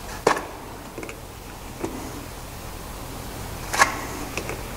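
Sharp metallic clicks and clacks of valve lifters being pulled one by one from a camshaft and rocker-arm assembly by hand. About five separate clicks, the loudest about a quarter second in and another just before four seconds.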